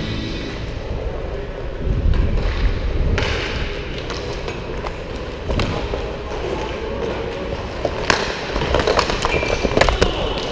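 Roller hockey play heard from the helmet: inline skate wheels rumbling on plastic sport-court tiles, broken by sharp clacks of sticks on the puck and the floor, with a quick run of clacks in the last few seconds.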